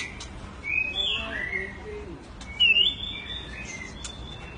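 White-rumped shama (murai batu) singing short whistled, gliding phrases, one at about one second and a louder one about two and a half seconds in.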